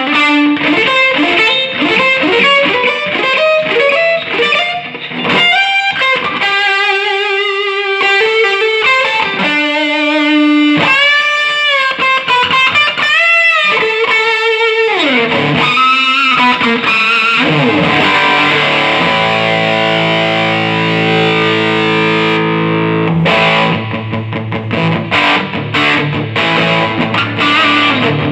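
Electric guitar played through a mid-90s Fender Hot Rod Deville 2x12 tube amp, freshly fitted with new 6L6GC power tubes, 12AX7 preamp tubes and filter capacitors. Picked single-note lines with string bends, then long ringing chords about two-thirds of the way through, then choppier playing near the end.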